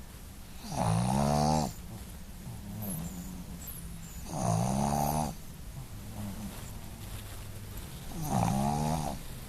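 Boston Terrier snoring, three loud, drawn-out pitched snores about four seconds apart with quieter breathing between.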